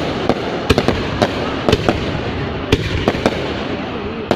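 Fireworks going off: a continuous dense rumble of bursts with sharp, loud bangs at irregular intervals, two or three a second.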